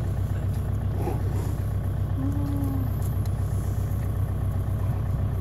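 An engine idling steadily, a low hum with an even pulse. A short low tone sounds about two seconds in.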